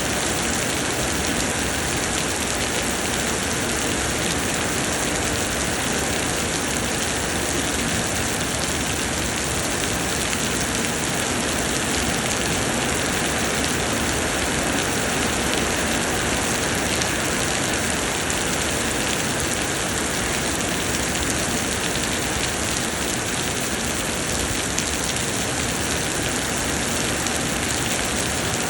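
Heavy summer rain falling steadily, a dense even patter of drops.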